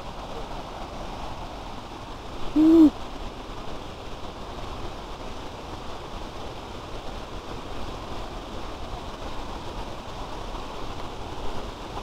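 Steady rush of distant falling and running water from a forest waterfall and its stream. About two and a half seconds in, a single short, loud hoot rises and falls in pitch.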